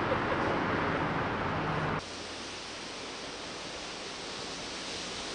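Steady hiss of background noise with no clear single source, stepping down abruptly about two seconds in to a quieter, even hiss.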